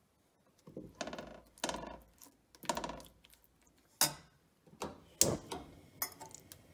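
Steel spoon mashing and spreading cooked moong dal in a nonstick pan: a series of short scraping strokes and taps of metal on the pan, about one a second, with a sharper tap about four seconds in.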